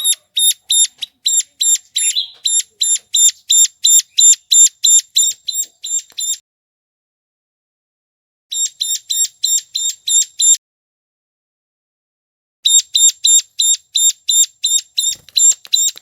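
Ciblek gunung (a prinia) calling: a fast series of sharp, high, identical notes, about three a second, in three runs broken by short pauses. It is the lure call played to attract wild birds.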